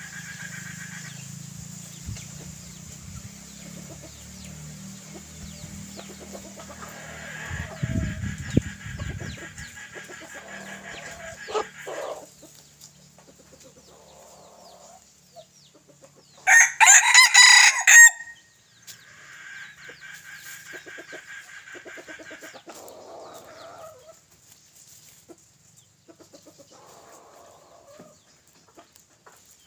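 Red junglefowl rooster crowing once, loud and short, about halfway through, with a few faint clucks around it.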